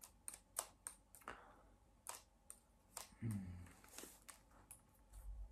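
Scattered soft clicks and taps of hands handling a small notebook, about a dozen irregular ticks, with a brief low hum about three seconds in.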